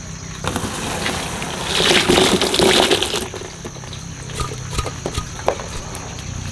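Water and cut potato sticks poured out into a woven bamboo basket to drain, a splashing pour that is loudest about two to three seconds in. After it come scattered light drips and ticks.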